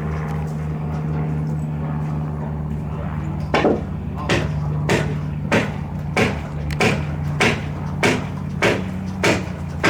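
A steady low machine hum, joined about three and a half seconds in by sharp, evenly spaced knocks, about three every two seconds.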